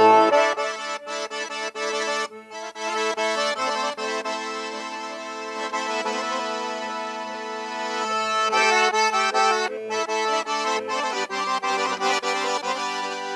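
Solo accordion playing a Chechen folk melody, with a sustained low note held under the moving tune. It starts with a loud chord.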